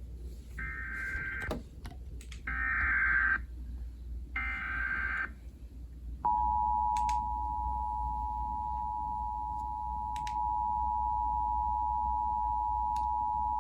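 Emergency Alert System SAME header: three bursts of warbling data tones, each about a second long. About six seconds in, the steady two-tone attention signal starts and holds. Together they announce a severe thunderstorm warning.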